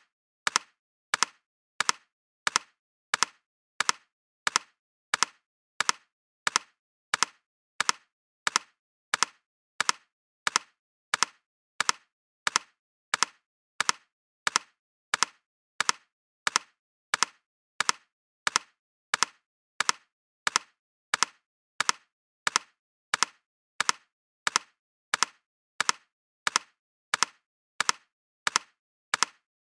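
Double-tap sound effect: short, sharp, dry taps repeated evenly, about three every two seconds.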